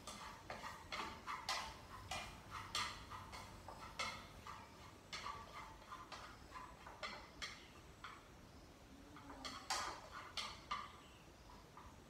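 Cooking chopsticks or tongs clinking and scraping against a pan on a gas stove, in irregular short knocks several times a second.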